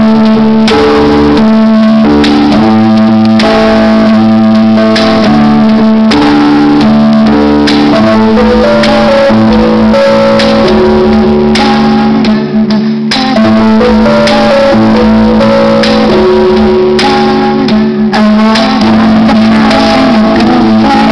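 Live music in an instrumental passage: guitar over a held low note, with regular strokes about every two-thirds of a second, recorded very loud.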